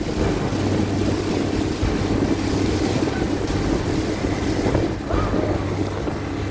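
Outboard motor of an inflatable rescue boat running with a steady hum, under the rush and splash of rough water as the boat pushes through waves, with wind buffeting the microphone.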